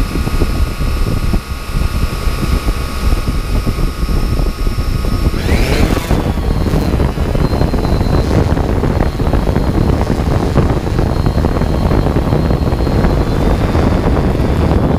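Multirotor drone's electric motors and propellers running with a steady whine, then spinning up with a rising whine about five and a half seconds in as it lifts off. A heavy low rumble of air buffeting the drone's own microphone runs under the whine.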